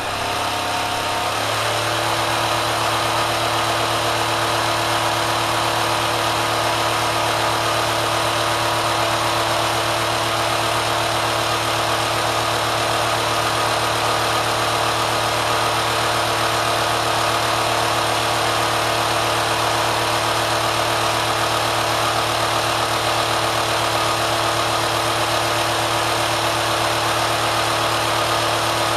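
Kenmore sewing machine driven by a 3/4 hp electric motor, coming up to speed in the first couple of seconds and then running steadily at high speed: a loud, even hum with dense mechanical noise from the machine's moving parts.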